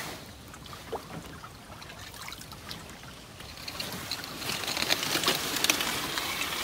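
Wooden canoe paddle dipping and stroking through river water, with trickling and dripping water; the splashing gets louder about four seconds in.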